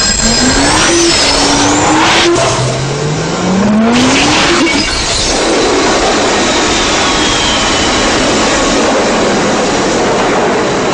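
A powerful vacuum cleaner running at full blast with a loud rush of air. Its motor whines up in pitch twice in the first few seconds and then runs steadily.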